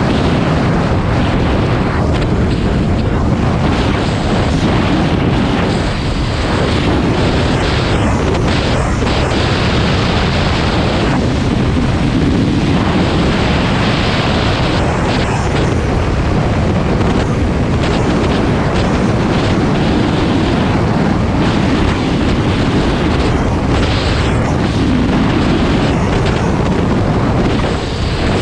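Steady wind noise buffeting the microphone, mixed with the engine of a Suzuki DR650RSE single-cylinder motorcycle running at an even cruising speed.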